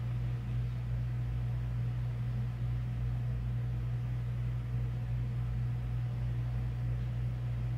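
A steady low hum with a faint hiss over it, unchanging throughout, with no other events.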